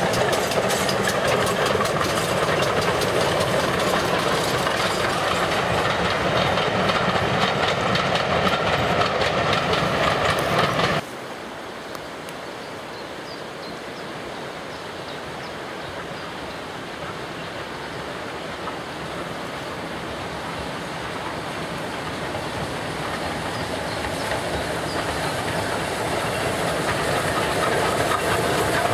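Two steam locomotives double-heading a passenger train run past close by with a loud, rapid, steady clatter of exhaust and wheels. This cuts off abruptly about 11 seconds in, and a pannier tank steam engine hauling a coach and tank wagons is then heard approaching, growing steadily louder toward the end.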